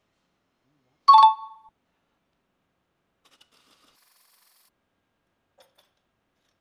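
A single short bell-like ding, struck sharply about a second in and ringing out for about half a second.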